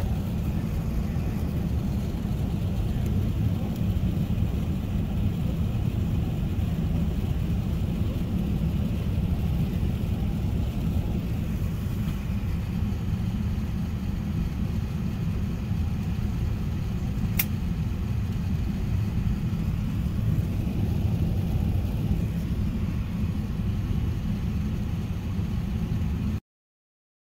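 Steady low rumble of a jet airliner's cabin as the aircraft moves along the ground, engines running. A single sharp click sounds about 17 seconds in.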